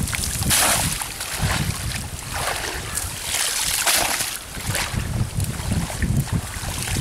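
Water splashing several times as a fishing net holding fish is dragged and lifted out of the water by hand, over a steady rumble of wind on the microphone.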